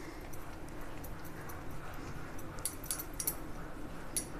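A few light metallic clinks of wrist bangles, in a cluster about two and a half to three and a half seconds in and once more near the end, as hands roll a filled rice-dough ball between the palms.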